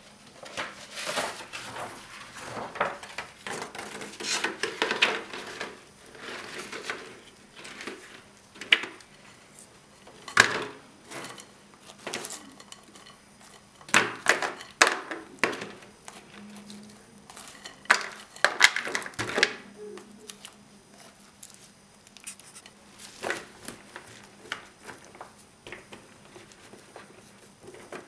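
Food-handling noise: honey-coated fried dough pieces for chak-chak being dropped and pressed by gloved hands into a metal cake ring lined with clear plastic film. It comes as irregular rustles and clicks, with a few sharper knocks in the middle.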